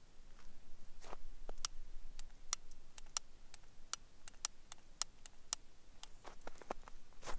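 Long-nosed barbecue utility lighter clicking, its igniter snapped again and again in a string of sharp, irregular clicks, a few a second, while trying to light firewood in a grill.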